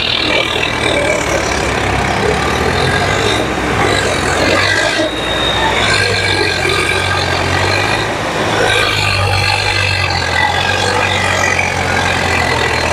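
Diesel tractor engine running with a steady low hum as a Swaraj tractor moves slowly forward over dirt.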